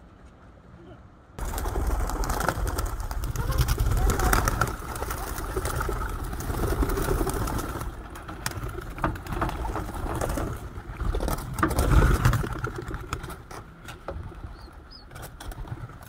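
A flock of pigeons flapping their wings as they take off and land, with cooing, over a low rumble. The sound starts abruptly about a second and a half in and is loudest about twelve seconds in.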